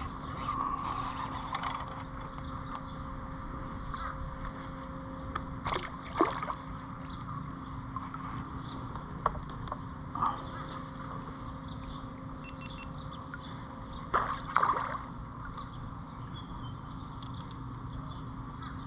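Water splashing and sloshing beside a kayak, with two short bursts of splashing about six and fourteen seconds in, over a steady low hum.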